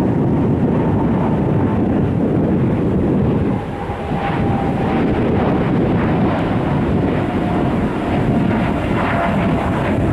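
Boeing 747-8 freighter's four GEnx turbofans at climb power, a loud steady jet roar with a faint fan whine slowly falling in pitch as the aircraft climbs away.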